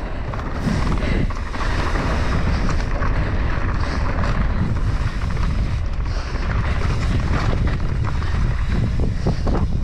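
Mountain bike riding fast down a loose dirt and gravel trail: wind buffeting the camera microphone over tyre noise on the loose surface, with scattered knocks and rattles from the bike over bumps.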